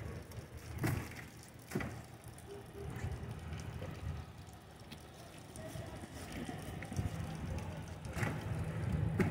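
Several knocks and thumps against an aluminium boat as fish are handled and lifted over the gunwale, with a low steady hum coming in about seven seconds in.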